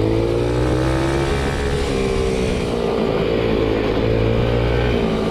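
A quad's small engine running steadily under way on a dirt trail, its pitch sagging and rising slightly as the throttle changes.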